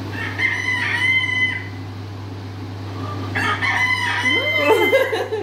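Rooster crowing twice, played through a TV's speakers: two long calls, the second with a lower wavering sound under its end.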